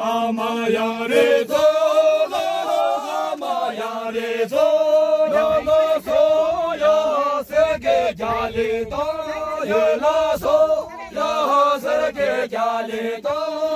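A group of dancers singing together unaccompanied, a traditional circle-dance song with long held notes.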